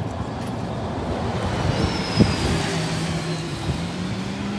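Tram pulling away from a stop amid street traffic. About halfway through, a steady low hum comes in and rises slightly in pitch, with a faint high whine above it, over general road noise and one short knock.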